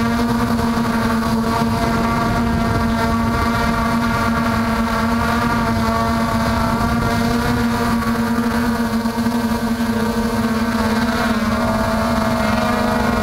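MJX Bugs 3 quadcopter's brushless motors and propellers buzzing steadily in flight, heard close up through the onboard camera's microphone. The pitch holds steady and dips briefly near the end.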